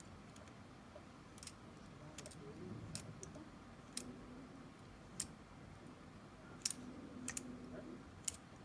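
Cassette tape being handled and inserted into a tape mechanism: a run of scattered sharp plastic clicks and knocks, irregular, the loudest a little past the middle.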